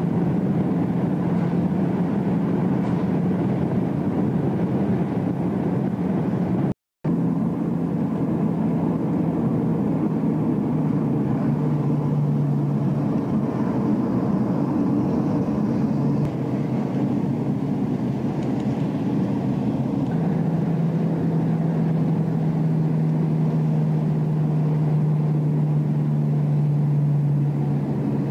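Car engine and road noise heard from inside the cabin: a steady drone with a low hum. The sound cuts out for a moment about seven seconds in, then carries on with a slightly different hum.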